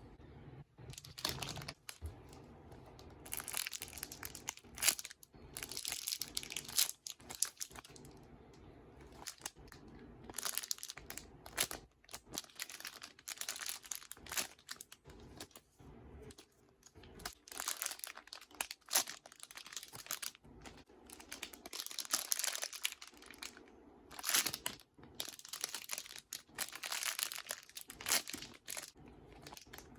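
Crinkling and rustling of handled plastic, in irregular bursts of varying length with brief pauses between.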